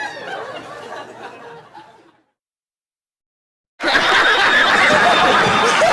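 Voices and laughter fade away into dead silence, then loud laughter from many people cuts in abruptly about four seconds in.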